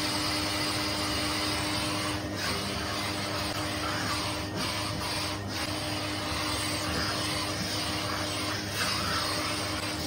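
Vacuum cleaner running steadily with a constant hum, its hose nozzle drawn through a cat's long fur. The hiss dips briefly three times as the nozzle presses into the fur.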